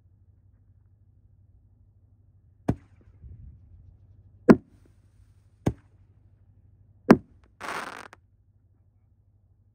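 Winda Rain Fire Nishiki Kamuro 5-inch canister shell fireworks going off: four sharp, loud bangs in about four and a half seconds, the shells lifting and breaking. A short rush of noise follows near the end.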